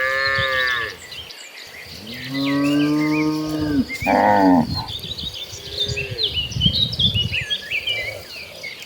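Cows mooing: a herd calling in several long, low moos, one after another, a shorter higher-pitched moo following the longest, with birds chirping in the background.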